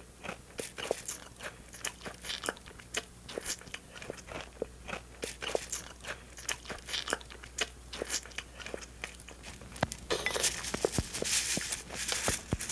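A man eating soggy cornflakes with milk from a bowl with a spoon: wet chewing and slurping, with many small clicks. About ten seconds in, a louder hissing stretch lasts about three seconds.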